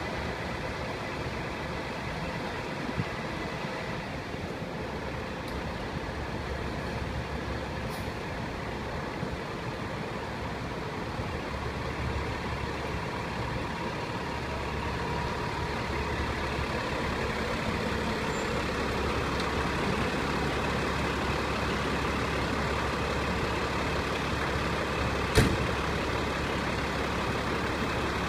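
Fire engine's diesel engine running steadily as the rig rolls out of its firehouse bay, growing gradually louder as it comes closer. One sharp click sounds near the end.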